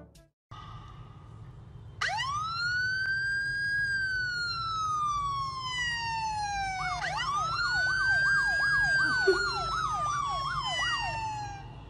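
Recorded police-style siren playing through a phone's speaker. It makes a long wail that rises, holds and slowly falls, then rises again and switches to a fast up-and-down yelp before cutting off.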